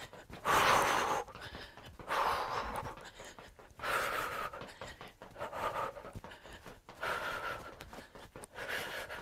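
A woman breathing hard from exertion while running in place: heavy breaths come roughly every second and a half.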